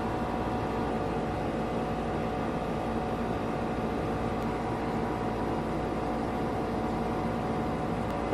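Steady background hum and hiss with a low rumble, unchanging throughout, with no distinct events.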